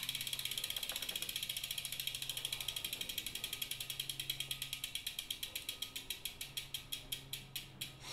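Bicycle freewheel ratchet clicking, a fast even run of ticks that slows steadily over several seconds.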